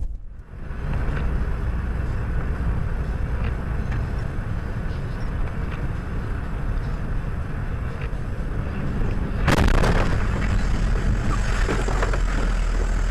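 A moving vehicle's engine and road noise, heard from inside the cab as a steady low rumble. About nine and a half seconds in, a much louder noise covering every pitch sets in suddenly and carries on.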